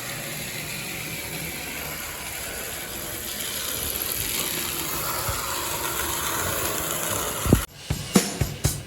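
Repaired American Flyer toy locomotive running: the steady whirr and gear chatter of its replacement electric motor, a little louder from about three seconds in. Near the end, music with a drum beat cuts in.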